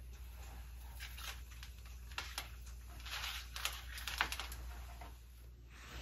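Faint scattered clicks and rustles of an electrical cable being handled and moved about.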